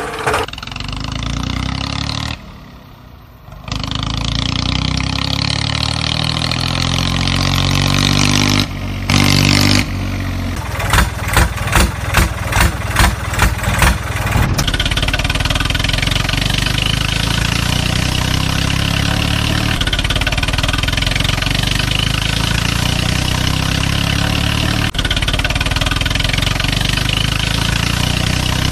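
Tractor engine running and revving, its pitch rising and falling, dropping away briefly about two seconds in. Near the middle it gives a string of short revs, about two a second, then settles into a steady run.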